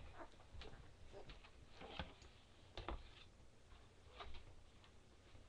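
Faint, irregular clicks and smacks of newborn English Setter puppies suckling at their mother.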